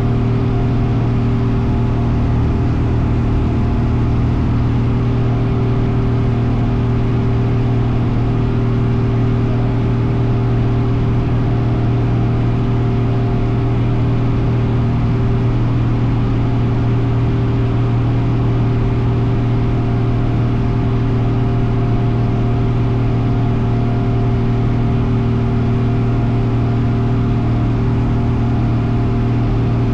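Cessna light aircraft's piston engine and propeller running at a steady power setting, a loud, even drone with a strong low hum that does not change.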